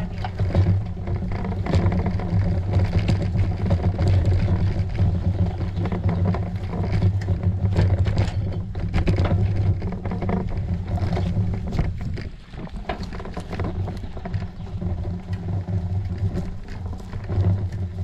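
Bicycle ridden over a sandy forest dirt track, heard through a GoPro mounted on the bike: a steady low drone with frequent rattles and knocks from the bumps. The drone eases off briefly about two-thirds of the way through, then returns.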